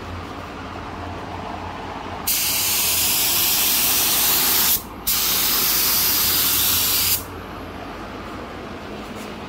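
Gravity-feed air spray gun spraying paint: two trigger pulls, each a loud, even hiss of air and atomised paint, the first about two and a half seconds long and the second about two seconds, separated by a short break.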